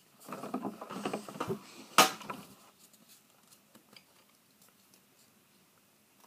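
A small plastic bottle of glitter being shaken, a pattering rattle for about a second and a half, then one sharp clack about two seconds in; after that only a few faint ticks of handling.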